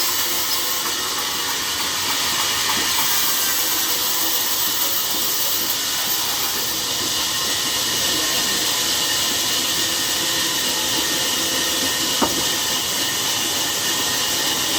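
Sawmill saw cutting through timber: a steady, loud hissing noise with no break, with one sharp click about twelve seconds in.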